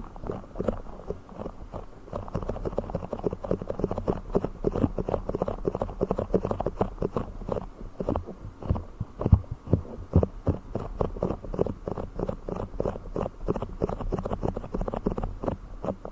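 A blue fish trigger object being handled close to the microphone: a fast, irregular stream of soft taps and clicks, with a few louder hits about nine seconds in.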